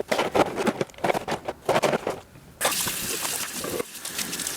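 Sink tap turned on a little over halfway through, with water running steadily from the faucet into the sink.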